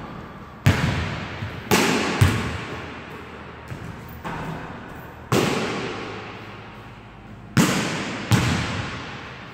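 A basketball striking the backboard and rim and bouncing on a hardwood gym floor: about six sharp thuds, each ringing out in a long echo.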